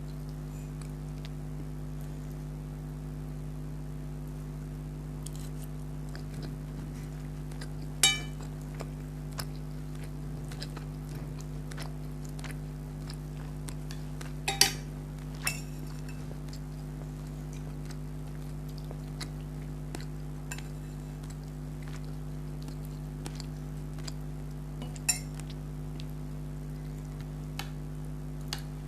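A few sharp clinks of an eating utensil against a dish: one about eight seconds in, a close pair and another near the middle, and one later, with fainter clicks between. Underneath runs a steady low hum.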